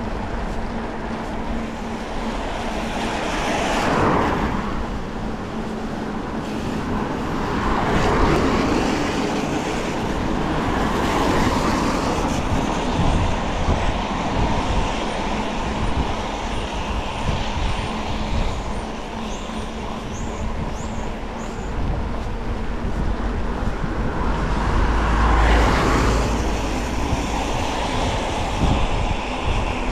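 Cars passing one after another on a wet road, about four going by, each rising and then fading, over steady wind rumble on the microphone.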